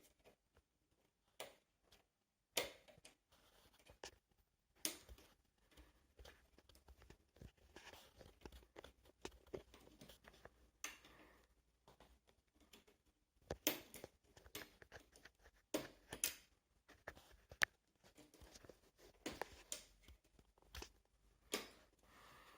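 Scattered clicks, taps and soft rustling of hands handling the plastic and metal parts of a dismantled LCD TV backlight assembly, with a dozen or so sharper knocks spread irregularly through it.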